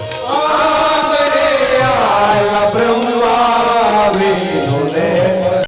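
Devotional singing with musical accompaniment: a chant-like melody of long held, gliding notes. It breaks off abruptly at the very end.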